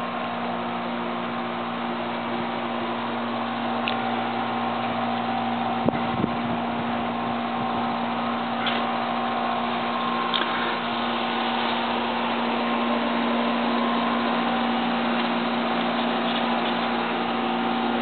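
A steady mechanical hum with several held tones over a bed of noise, with a few faint clicks.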